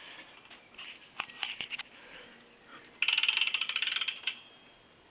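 BMX rear hub freewheel clicking as the wheel turns: a few scattered clicks, then about three seconds in a fast, dense run of ratcheting pawl ticks lasting just over a second.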